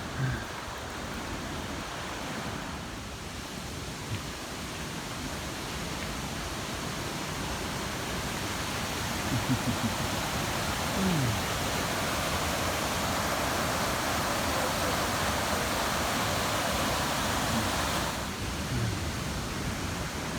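Steady rushing noise of water tumbling over rocks, swelling louder for several seconds midway. A few short, low, sliding sounds stand out near the middle.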